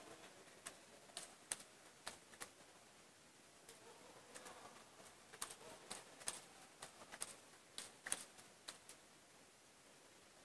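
Table tennis ball clicking off the bats and the table in a fast practice rally. A short run of hits comes near the start, a pause follows, then a longer run of quick hits at about three a second, stopping a second or two before the end.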